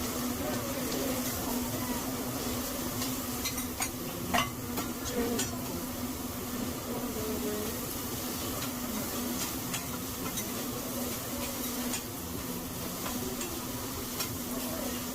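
Food sizzling on a hibachi griddle, with a few sharp metallic clicks and taps, the loudest about four seconds in, over a steady low hum.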